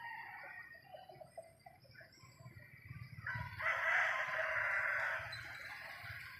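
A rooster crowing: one long call of about a second and a half, a few seconds in, after fainter calls at the start.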